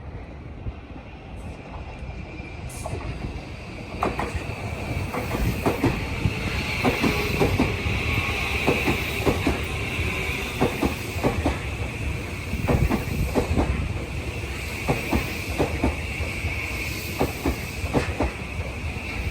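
Tobu line electric train running through the station, its wheels clacking over rail joints in quick irregular clicks from about four seconds in, over a low rumble and a steady high-pitched wheel squeal.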